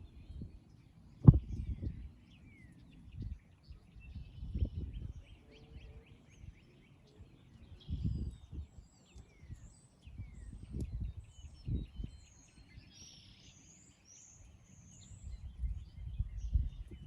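Irregular low thumps and rumbles, with one sharp thump about a second in, over birds chirping faintly.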